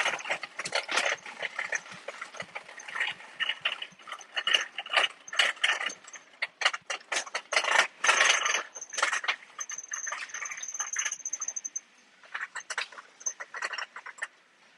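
Shopping cart rattling as it is pushed across a tiled floor: a dense, irregular run of clicks and clatter that thins to a few scattered clicks about twelve seconds in.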